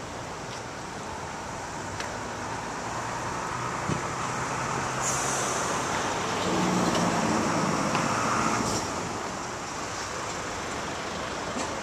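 Steady road traffic noise, with a large vehicle's engine growing louder and then fading as it passes about midway through, and a brief hiss as it approaches.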